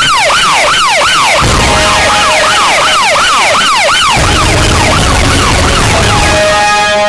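Police siren wailing up and down about three times a second, loud, with music coming in under it about a second and a half in. The siren sweeps fade after about four seconds, leaving music with held notes.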